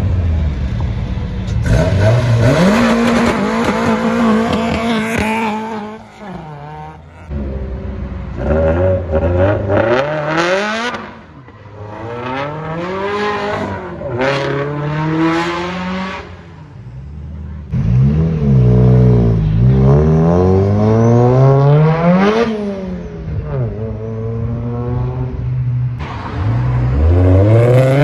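Tuned performance car engines revving hard and accelerating. The pitch climbs and drops again and again with throttle blips and gear changes, in several short clips cut one after another.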